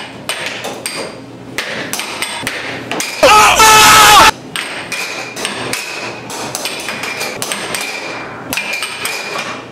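Air hockey puck and mallets clacking on the table, a quick run of sharp hits and knocks off the rails. About three seconds in, a player lets out a loud yell that lasts about a second.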